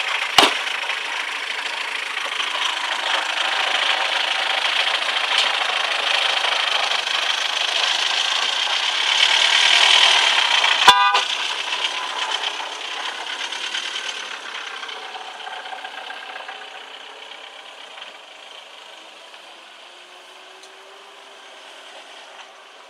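Several car horns honking continuously and overlapping, swelling to their loudest about ten seconds in, then fading away over the following seconds. A sharp knock sounds just after the start and again about eleven seconds in.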